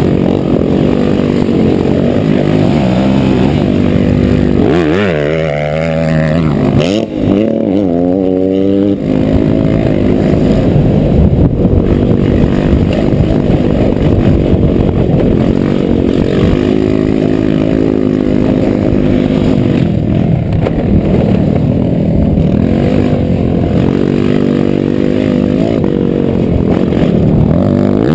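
Honda Elite 80 scooter's small single-cylinder engine running hard while ridden over a dirt motocross track, the revs falling and climbing again several times about five to nine seconds in, then held high and steady.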